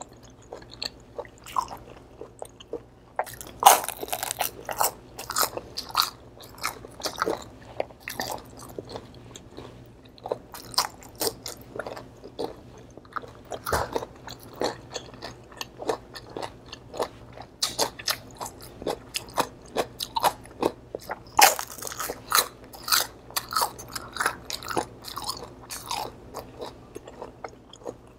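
Close-up crunching as crispy deep-fried pork is bitten and chewed, many sharp crunches with loud bites about four seconds in and again a little after twenty seconds.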